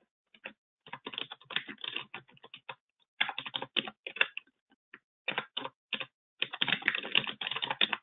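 Typing on a computer keyboard: several quick runs of key clicks with short pauses between them.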